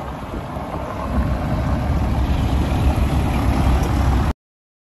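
Toyota Premio with a custom-built exhaust, running with a deep, steady exhaust note that gets louder about a second in. The sound cuts off abruptly a little after four seconds.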